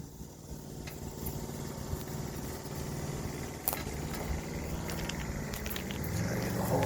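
Spider lift's engine running steadily, getting louder near the end, with a single sharp click partway through.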